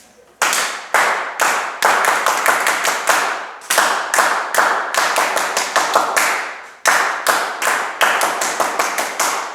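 Rhythmic hand clapping, about two to three claps a second, starting about half a second in, with short breaks twice.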